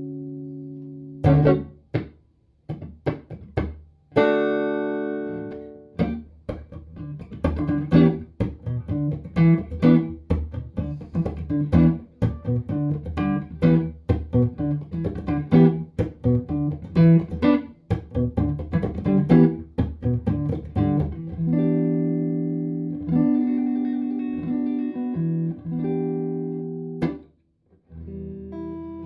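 Squier Bullet Stratocaster electric guitar played clean through a Fender Hot Rod Deluxe IV amp with no effects. A ringing chord dies away, a few chords are struck, then comes a long run of quickly picked single notes, and held chords ring out near the end.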